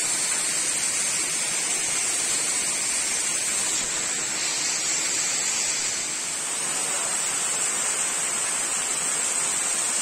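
Steady rush of water from a waterfall and its stream, an even hiss with a bright high edge.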